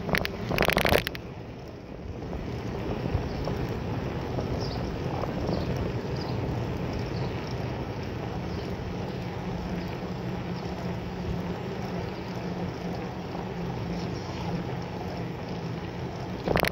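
Steady wind rush and rolling noise of a bicycle ride picked up by a bike-mounted camera, with a low steady hum underneath. A short, loud rattling burst comes under a second in and another near the end.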